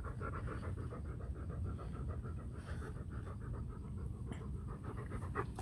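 A large dog panting close by, quick and steady.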